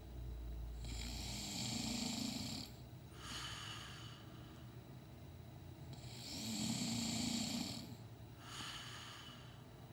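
A sleeping man snoring: two snoring breaths about five seconds apart, each a longer, louder rasping snore followed by a shorter, softer one.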